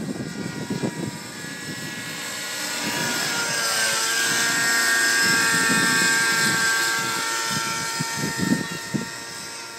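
Thunder Tiger Raptor 90 nitro RC helicopter's engine and rotor running with a steady whine. It grows louder as it passes close, about halfway through, then fades as it moves away. Irregular low rumbles at the start and near the end.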